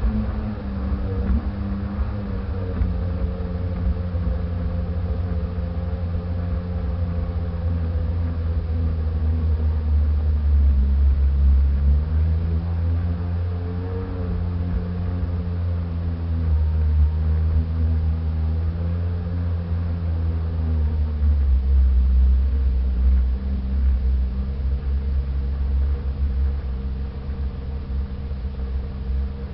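Sea-Doo jet ski engine running under way, its steady hum dipping and rising in pitch a few times as the throttle changes, over a heavy low rumble.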